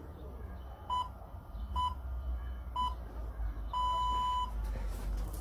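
Interval timer's round signal: three short beeps about a second apart, then one longer beep, marking the start of a new round. A steady low rumble lies underneath.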